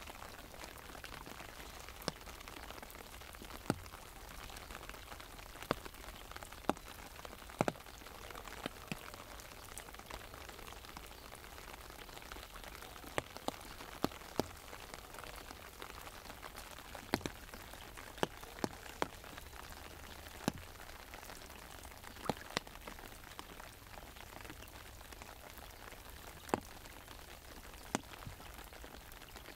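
Rain falling on an umbrella: a steady patter, with larger single drops ticking sharply on the canopy at irregular moments.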